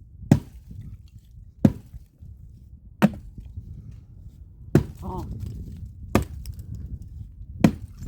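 Axe chopping firewood: six sharp blows, about one every second and a half.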